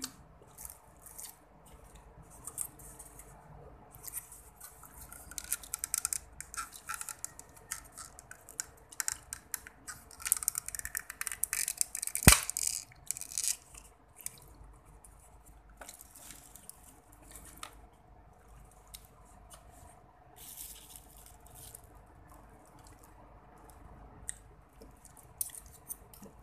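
A metal spoon and fork click and scrape against food in a paper meal box. A plastic lid is pulled off a small cup of gravy, with one sharp snap about twelve seconds in.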